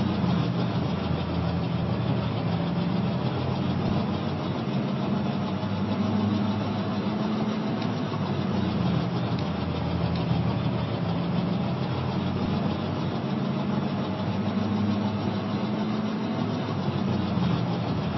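Diesel locomotive engine running steadily: a low engine note that swells and eases slightly every couple of seconds, with a faint steady whine above it.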